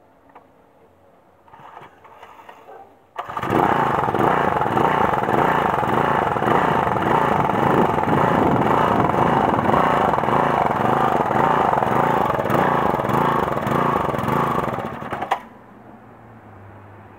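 Briggs & Stratton 375 Sprint lawnmower engine, a 3.75 hp single-cylinder four-stroke, catching on a pull of its recoil starter about three seconds in and running loud and fast, then dropping abruptly to a quiet low idle near the end.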